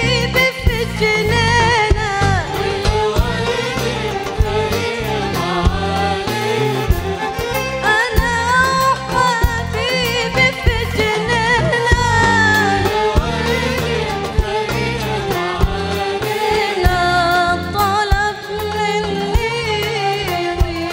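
A boy singing an Arabic song solo into a microphone, holding long ornamented notes that waver and bend, over instrumental accompaniment with a regular percussion beat.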